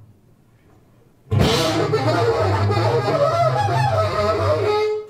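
Improvised jazz from tenor saxophone, electric bass and drum kit: after about a second of near silence the band comes in together with a sudden loud hit, plays a dense, loud passage, and stops together abruptly near the end.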